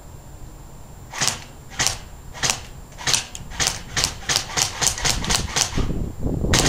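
Airsoft gun firing single semi-automatic shots at foam armor plates: about a dozen sharp cracks starting about a second in, coming faster and faster, up to about four a second. A low rumbling noise comes in near the end, with one more shot.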